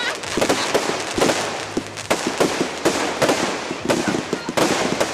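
Fireworks display going off: a rapid, continuous run of bangs and crackling pops.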